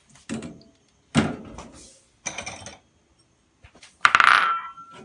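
Spoon knocking and scraping in a stainless-steel saucepan of simmering rice congee, three short strokes a second or so apart. About four seconds in comes a louder clatter of kitchenware with a ringing note.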